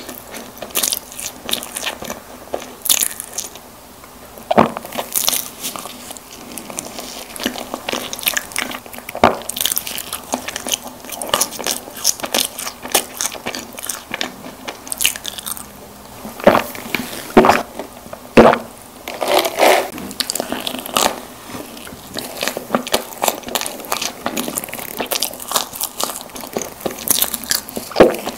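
Close-miked eating of soft, chocolate-coated Korean snack cakes: irregular bites and wet chewing with sharp little crunches, a few louder ones midway through.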